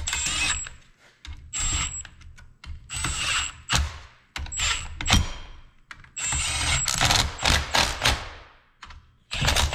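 Cordless impact gun running bolts down into a transfer-case cover in a series of short bursts, each with a high motor whine over the rattle of the hammering.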